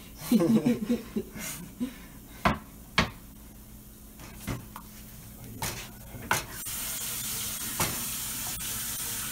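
Jarred tomato sauce being added to a hot pan of pasta: a few scattered knocks and clinks against the pan, then a steady sizzle that comes up about two-thirds of the way in.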